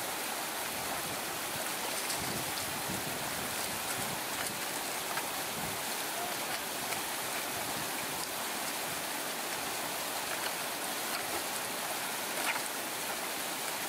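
Shallow mountain brook running over rocks: a steady rush of water, with a few faint clicks.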